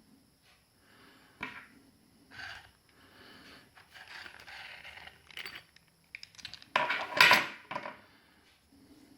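Clicks, clinks and short clatters of small hard objects being handled, with a sharp click about a second and a half in and a louder, dense rattle lasting about a second near seven seconds in.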